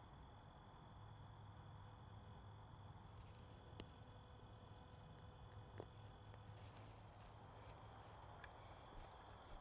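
Faint chirping of crickets: a high chirp repeating about four times a second over a steady high trill, with a couple of faint clicks.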